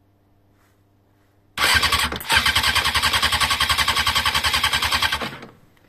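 Motorcycle engine turned over on its electric starter with the spark plugs out, cranking in a rapid, even chug for about four seconds from about a second and a half in. This is a compression test on cylinder two, which comes up near the 200 psi mark.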